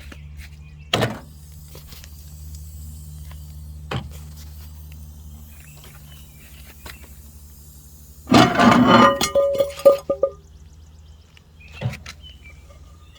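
Microwave oven running with a steady low hum, broken by a couple of sharp clicks and, about eight seconds in, a loud burst of rattling and clattering lasting about two seconds. The hum stops a little later, followed by a single thump.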